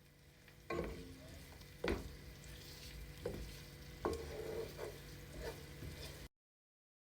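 Food sizzling as it fries in a pot while a spoon stirs it, knocking against the pot about six times. The sound cuts off suddenly about six seconds in.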